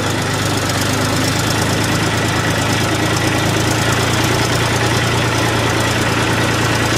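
Tractor's diesel engine running at a steady speed, heard close up from on board while towing a loaded water tanker, with a constant low hum and clatter.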